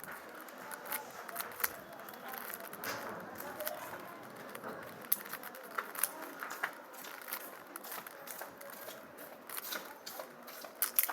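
Irregular small plastic clicks and clacks of a Rubik's cube's layers being turned one-handed, with faint voices in the background.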